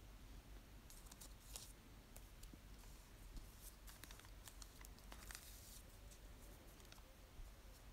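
Faint rustling and crinkling of paper cut-outs being handled and pressed down onto a journal page, in several short scattered bits.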